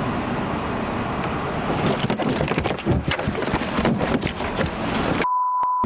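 Close scuffling and rustling against the back-seat microphone of a police car: steady noise at first, then from about two seconds in a dense run of crackling knocks and rubbing as clothing and bodies press against it. Near the end the sound cuts out for a short, steady, high beep.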